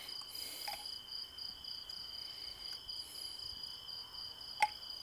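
Crickets chirping steadily in a continuous high trill. A single sharp click sounds near the end.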